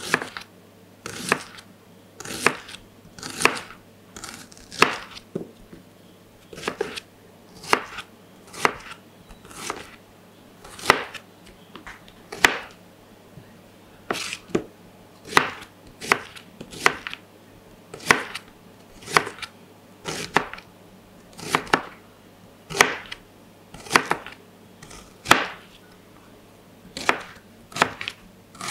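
Kitchen knife chopping red onions on a plastic cutting board: sharp knocks of the blade striking the board, about one to two a second and unevenly spaced.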